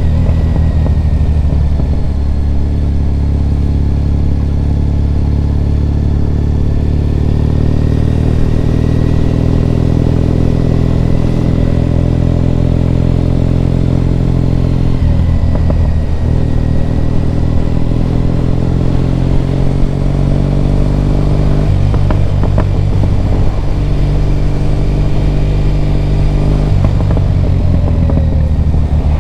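Triumph Bonneville T100's parallel-twin engine running under way, pulling steadily with its pitch stepping down and back up at gear changes about halfway through, around two-thirds of the way, and near the end.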